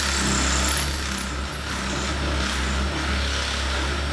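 Power drill running steadily under load, re-drilling a pilot hole in a vanity cabinet door, held tilted downward to correct a hole that sat too low.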